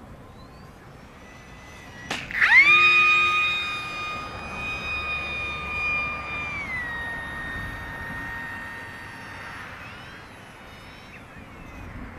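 OMP Hobby S720 micro RC plane's electric motor and propeller whining. A sharp click comes about two seconds in, then the pitch sweeps up to a steady high whine as the throttle opens. The pitch steps down about two-thirds of the way through as the throttle eases, and the whine fades near the end.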